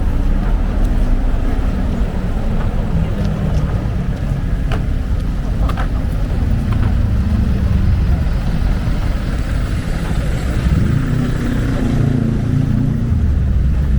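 Busy street ambience: a steady rumble of road traffic with low murmuring voices of a crowd on foot and a few scattered clicks.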